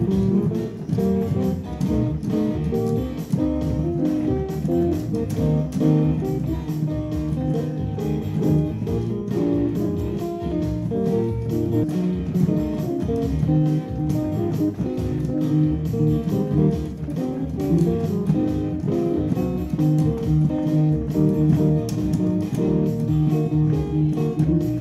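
Electronic keyboard played with both hands on a voice that sounds like a plucked guitar, a continuous run of notes over a steady beat.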